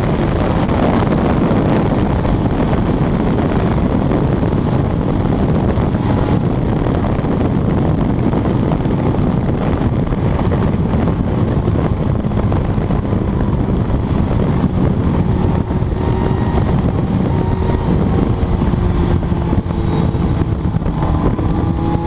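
Heavy wind rush on the microphone from a motorcycle ridden at very high speed, with the Kawasaki ZX-12R's inline-four engine running under it. In the last few seconds a steadier engine note comes through more clearly.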